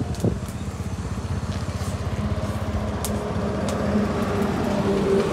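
A small motor vehicle's engine running steadily close by, with a fast even pulse and a steady hum, growing slightly louder toward the end.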